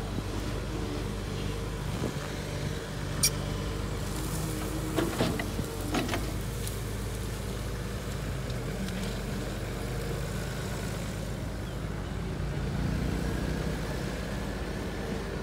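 Caterpillar 320C hydraulic excavator's diesel engine running steadily as it digs and dumps earth, with a few sharp knocks about three seconds in and again around five to six seconds in.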